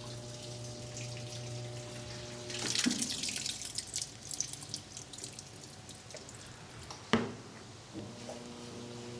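Electrolux Turbo Economia LTE12 washing machine with water in the tub: a steady electrical hum, then about three seconds of water splashing starting a little over two and a half seconds in. A sharp click comes about seven seconds in, and the hum returns near the end.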